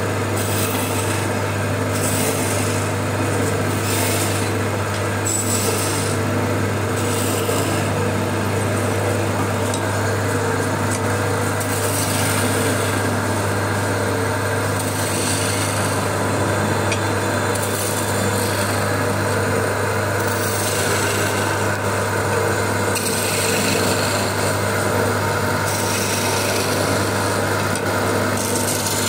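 Electric wood lathe running with a steady low hum while a flat chisel cuts and scrapes a spinning wooden spindle, the hissing cut swelling and easing with each pass of the tool.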